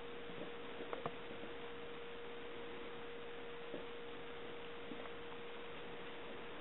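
Quiet room tone: a steady hiss with a constant mid-pitched hum running through it, and a few faint ticks, two about a second in and a couple more later.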